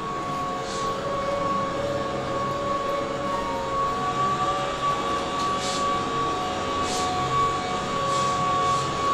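Keihan 8000 series electric train standing with its equipment running, giving a steady high-pitched hum with a few weaker tones that come and go. Brief soft hisses sound twice about six and seven seconds in.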